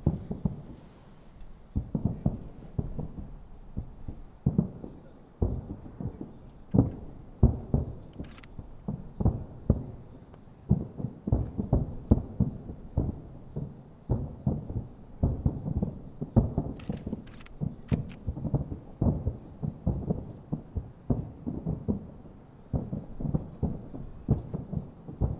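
Fireworks finale heard from a distance: aerial shells bursting from three launch sites at once, an irregular barrage of low booms, often several a second, that thins out near the end.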